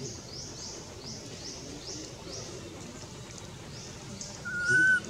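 Short high chirps repeating about twice a second in the background. About four and a half seconds in comes one loud, short whistle-like coo that rises slightly, the call of a baby long-tailed macaque for its mother.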